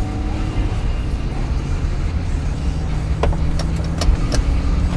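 Inside the cab of a 2005 Chevrolet Avalanche with its 5.3-litre V8 on the road: a steady low engine and road rumble, with a few sharp clicks between about three and four and a half seconds in.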